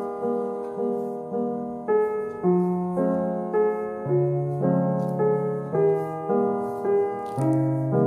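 Gentle background piano music, a slow melody with a new note or chord struck about twice a second.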